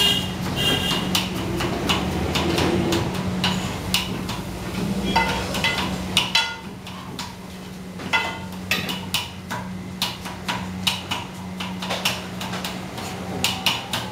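Kitchen work: irregular knocks and clinks of metal utensils and pots, a few each second, over a steady low hum.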